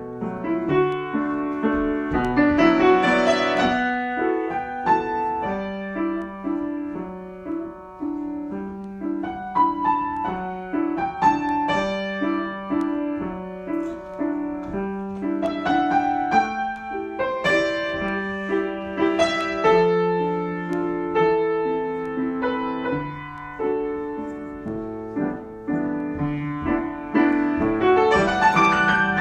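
Solo piano improvisation: a repeating low figure of notes under chords and melody higher up, with fuller, louder flourishes about three seconds in and again near the end.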